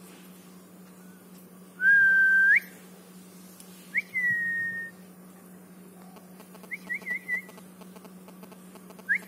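A person whistling clear notes to call a bird. A long held note turns up at its end, a shorter note slides down and levels off, then come quick runs of rising chirps near the end.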